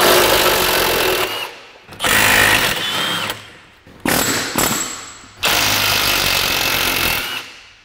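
Handheld power tool run in four bursts of one to two seconds, each winding down, as fasteners are worked loose on a car's rear suspension.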